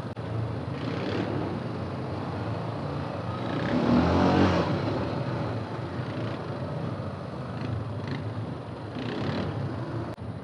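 Yamaha Grizzly 350 quad's single-cylinder four-stroke engine running under way, revving up to its loudest about four seconds in, then settling back to a steady pull.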